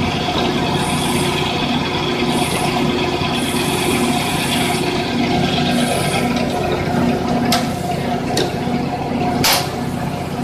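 Electric pipe threading machine running steadily while its die head cuts a thread on a steel pipe, a constant motor and gear hum. Three sharp clicks come in the last few seconds, the last the loudest.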